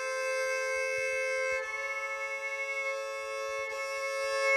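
Hardanger d'amore, a ten-string fiddle, bowed in long held double stops, the pair of notes changing twice. The intervals are tuned by ear to the difference tone that the two notes make.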